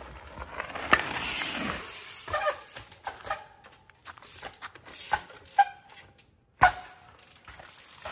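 Trials bike ridden over a ramp and onto rocks: a rush of tyres on gravel, a sharp clunk about a second in and another near seven seconds, with short squeaks and ratchet-like clicks from the bike in between.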